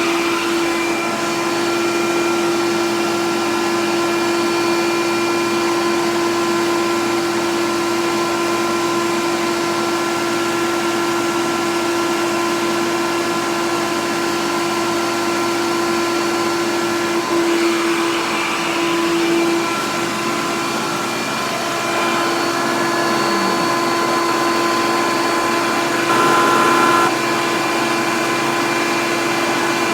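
Vacuum cleaner running steadily with a constant whine, worked with a nozzle attachment over carpet. Its sound changes briefly twice, about two-thirds of the way in and again near the end.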